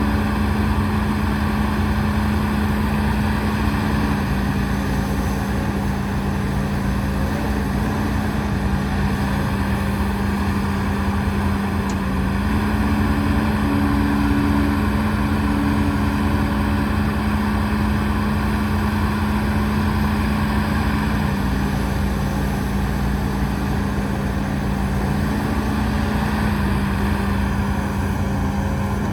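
Heavy diesel engine of earthmoving machinery running steadily under load. Its pitch steps slightly up and down a few times.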